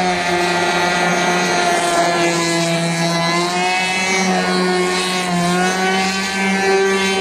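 RC airboat's small engine and air propeller running steadily at high speed as the boat crosses the water, the pitch wavering slightly a couple of times.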